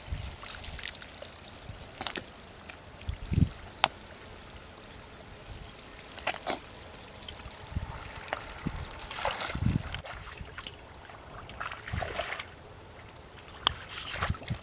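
Feet wading through shallow muddy creek water: scattered splashes, sloshes and soft thumps in mud, heaviest about nine and twelve seconds in. Faint, short, high chirps repeat in pairs during the first few seconds.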